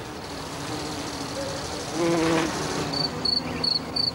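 Insect wings buzzing in flight, the hum swelling louder about two seconds in. From about three seconds, a cricket chirping in short, regular, high chirps, about three a second.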